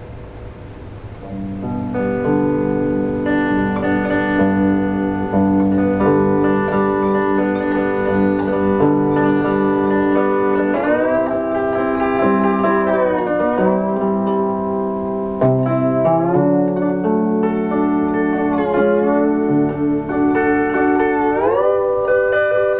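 Electric lap steel guitar built from laminated skateboards, played with a slide: sustained notes and chords, sliding up and down in pitch from about halfway through.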